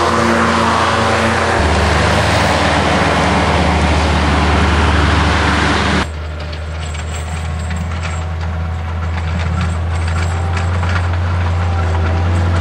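Avant 7-series compact loader's engine running steadily with its front mower deck spinning, a wide hiss over the engine note. About six seconds in the sound changes abruptly to the loader's engine pushing a plough blade through snow, quieter, with a scatter of light scraping ticks.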